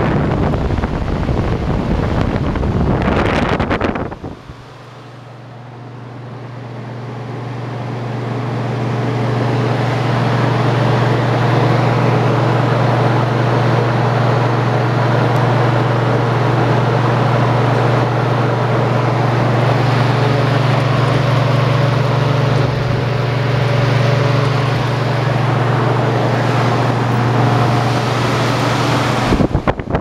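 Portacool portable evaporative cooler's fan running. For the first few seconds its airflow buffets the microphone. Then comes a steady low motor hum under rushing air that grows over several seconds and holds steady, and the air buffeting returns near the end.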